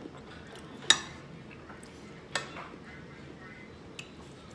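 A metal fork clinks against a ceramic dinner plate three times: a sharp, loud clink about a second in, another about two and a half seconds in, and a faint one near the end.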